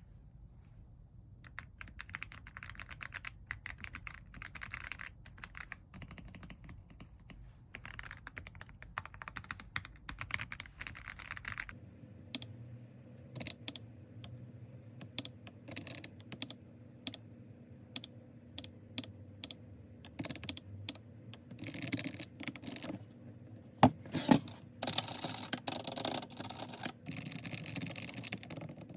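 Typing on an AULA F87 mechanical keyboard: runs of key clicks in bursts at first, then more spaced single keystrokes with a few faster, louder runs near the end.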